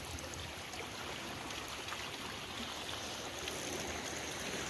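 Sea water washing against the rocks, a steady rush of surf on a rough day.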